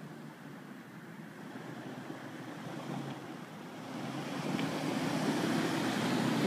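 Jeep Wrangler driving up the street toward the microphone, its engine and tyre noise growing louder from about four seconds in.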